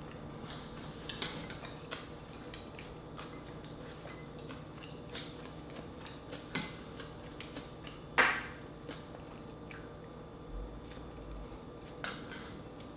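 Close-up eating sounds: mussels and rice being chewed, with scattered light clicks of a small wooden spoon against a wooden rice bowl. One sharper clack about eight seconds in is the loudest sound.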